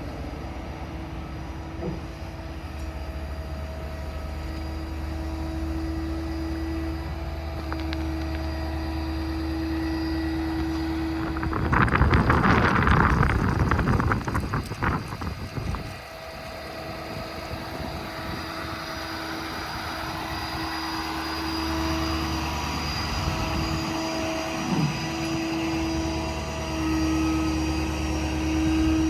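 Service truck's 6.7 Powerstroke diesel running with the crane's PTO-driven hydraulic pump, a steady hum with a whining tone that cuts in and out as the crane functions are worked. About twelve seconds in, a loud rushing noise with rattling lasts about four seconds.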